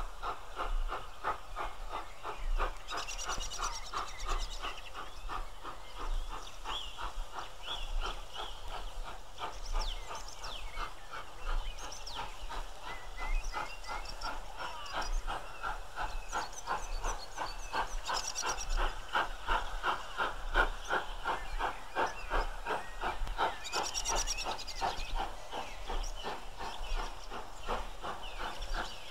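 LNER B1 class two-cylinder 4-6-0 steam locomotive No. 61341 working a train slowly up a grade, with a steady, even rhythm of exhaust beats and a hiss of steam.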